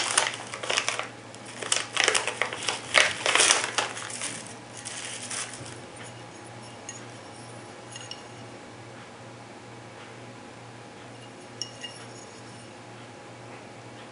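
Plastic packaging bag crinkling as it is torn open and the parts pulled out, for about the first five seconds. After that only a low steady hum, with a few light metallic clicks as the aluminum grip panels and their screws are handled.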